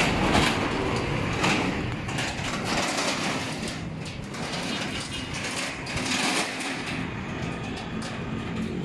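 Metal roll-up shutter being pulled down by hand, its slats rattling and clattering unevenly as the curtain unrolls.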